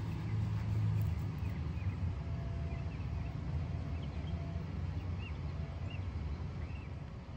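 Steady low rumble of road traffic, with faint short bird chirps scattered through the middle.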